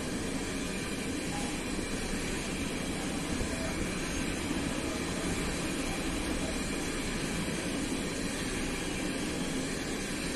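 A train running past with a steady, even noise that holds at one level throughout.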